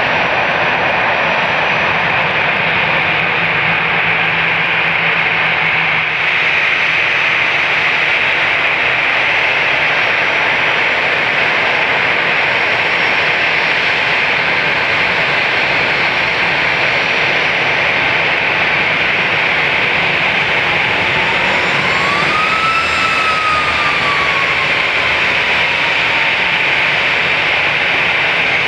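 Airbus A320-214's CFM56 jet engines running at taxi idle, a steady whine and rush as the airliner taxis in. About three-quarters of the way through, a faint whistling tone rises and then falls.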